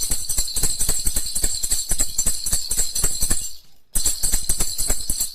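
Baby rattle (jhunjhuna) shaken fast, about eight shakes a second, each stroke with a bright high ring. It breaks off for about half a second after three and a half seconds, starts again, and stops at the end.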